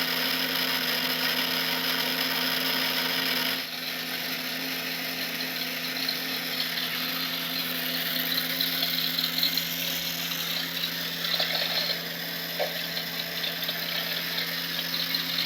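Small electric motor driving plastic gears in a die-cast model's roof light-bar mechanism, running steadily with a whirring, grinding sound. It drops slightly in level about three and a half seconds in.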